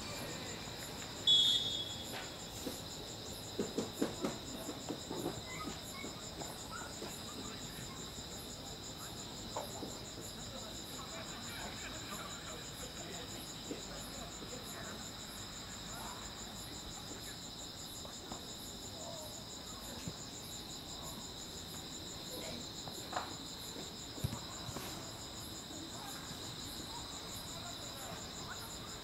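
Steady pulsing chorus of crickets chirping throughout. A short, shrill whistle blast sounds about a second in, the loudest moment, and a few scattered knocks come shortly after and again near the end.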